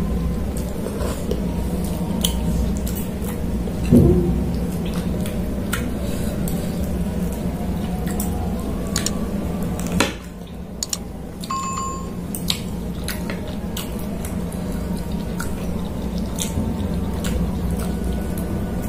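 Close-miked eating sounds: wet chewing and slurping of noodles and salad, with scattered light clicks of a steel spoon and fork against a plate. A louder thump comes about four seconds in.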